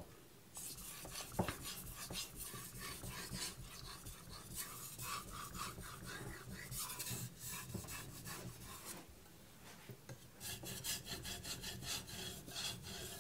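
An aogami #2 steel knife blade scraping back and forth in quick strokes on a wet Kitayama 8000-grit finishing whetstone, polishing the edge. The strokes pause briefly about nine seconds in, then start again.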